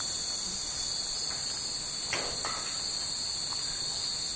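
A chorus of summer cicadas shrilling steadily at a high pitch, with a couple of faint brief sounds about two seconds in.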